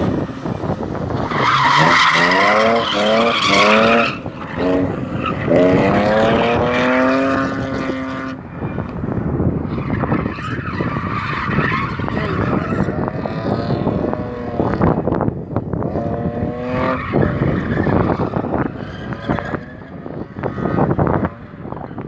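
BMW drift car's engine revving hard in repeated rising sweeps as the car slides sideways, with its tyres squealing. The revving is clearest in the first eight seconds and returns briefly later.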